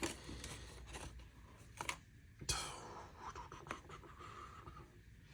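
Faint scraping and rubbing with a few light clicks and knocks as small objects are moved about on a cluttered table, while hands search for a tiny knife spring.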